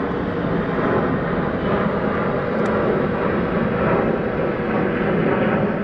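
Jet engines of a twin-engine Airbus airliner passing overhead at climb power after a go-around: a steady, loud rushing noise with a faint steady hum underneath.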